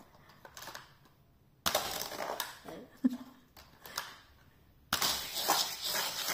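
Die-cast toy cars clattering against each other and the plastic track as they are handled, in two bouts of rattling: one starting under two seconds in, the other about five seconds in.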